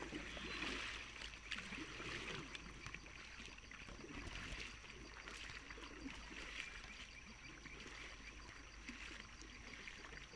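Kayak paddles dipping and splashing softly in calm water as an inflatable tandem kayak is paddled along, with water trickling off the blades.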